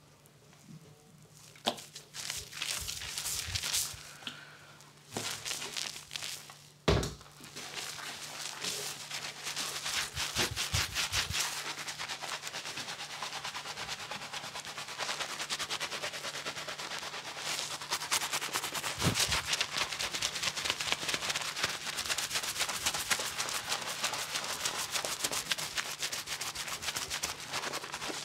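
Shampoo squirted from a squeeze bottle onto wet hair, with a sharp knock just before seven seconds in, then fingers scrubbing a thick foam lather through the hair: a dense, fast crackling squish that runs on steadily from about eight seconds in.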